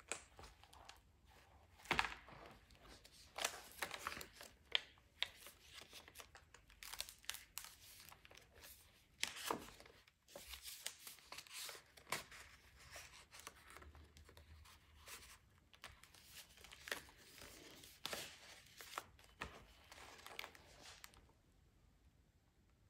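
Pages of a handmade paper journal being turned and handled: irregular paper rustling and crinkling with sharp taps and knocks, stopping near the end.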